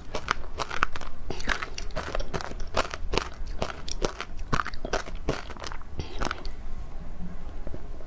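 Frozen matcha ice being bitten and chewed: a quick run of crisp crunches, roughly two or three a second, that thins out about six seconds in.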